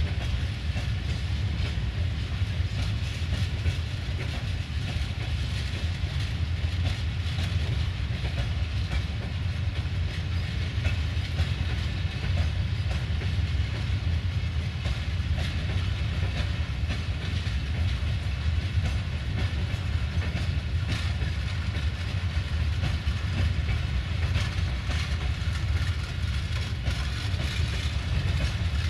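Open freight wagons rolling past on the rails: a steady low rumble of wheels on track, with light clicks over the rail joints.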